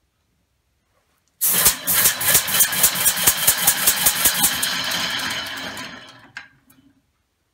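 Homemade three-cylinder compressed-air engine starting on shop air: a sudden loud burst of rapid exhaust puffs as the rotor spins up. The puffing fades out over about four seconds as the engine runs down, followed by a single click.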